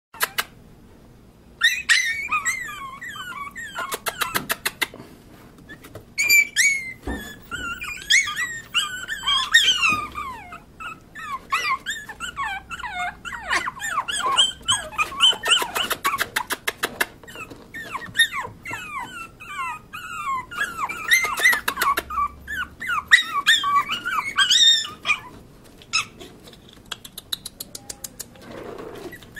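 A litter of Pomeranian puppies whimpering and yipping: many high-pitched squeaky cries that bend up and down in pitch, coming in quick overlapping runs, with scattered clicks among them. The cries die down near the end.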